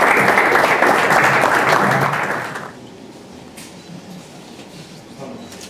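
Audience applause, dense hand-clapping from a roomful of people, that stops fairly abruptly about two and a half seconds in, leaving low room murmur and a few faint clicks.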